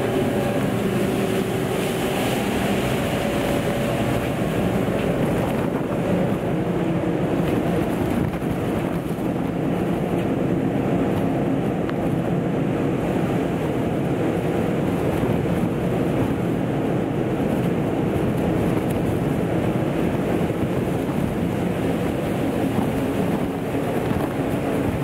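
Storm-force wind blasting across a ship's open deck and buffeting the microphone, over the rushing of heavy seas: a steady, dense roar.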